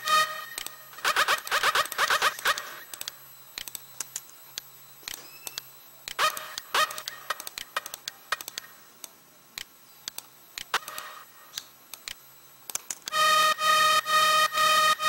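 Sylenth1 synth in FL Studio: a quick run of short stabs about a second in, then scattered clicks and brief note blips while notes are entered. About thirteen seconds in, a fast, evenly repeated synth stab pattern on one note starts playing.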